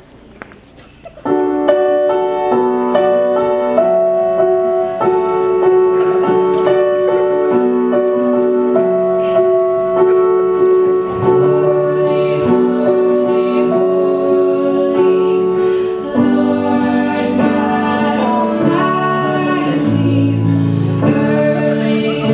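Yamaha stage keyboard playing a song with steady chords and melody notes, starting about a second in. A voice joins, singing, in the second half.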